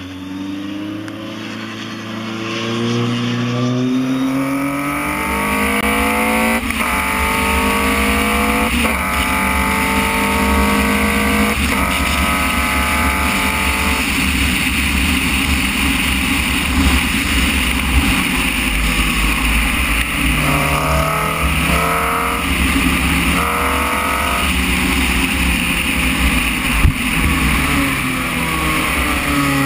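Formula Renault 2.0 single-seater's four-cylinder engine accelerating hard, rising in pitch and dropping back at each quick upshift. It is heard first from trackside, then onboard with heavy wind rush. In the middle it holds at high revs, then eases off and climbs through the gears again near the end.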